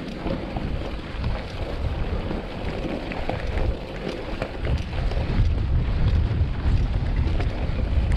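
Wind buffeting the bike-mounted camera's microphone over the crunch of mountain bike tyres rolling on a gravel track, with scattered small clicks and rattles from the bike.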